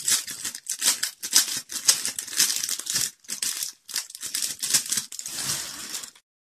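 Clear plastic packaging bag crinkling and rustling as it is pulled open and handled, in quick irregular crackles; the sound cuts off suddenly near the end.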